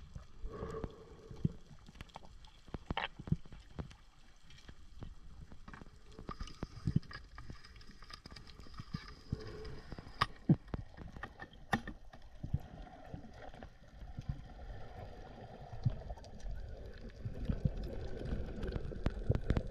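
Underwater sound picked up by an action camera in its housing during a freedive. Scattered sharp clicks and pops sit over a low rumble of moving water, which grows louder in the last few seconds, with faint steady tones drifting in and out.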